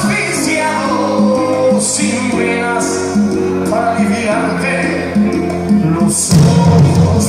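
A song with a singing voice over instruments; a little after six seconds in it becomes louder and fuller.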